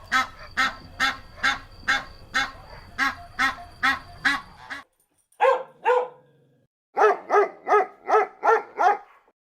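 Waterfowl calling in a rapid series of harsh calls, about two a second, then a short pause, two more calls, and a quicker run of about six calls near the end.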